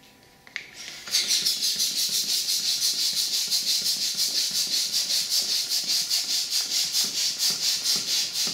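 Small plastic hand balloon pump being worked rapidly to inflate a latex balloon: a fast, even train of air hisses, one with each stroke, starting about a second in.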